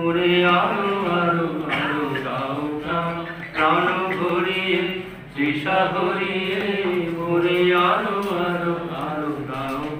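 A man singing a slow Bengali song in long, drawn-out notes that waver in pitch, with short breaths between phrases.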